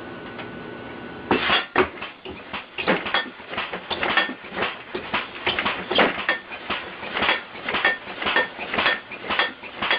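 Air-compressor-powered bed alarm running: a rapid, even clattering of about three knocks a second that starts about a second in, after a steady hiss.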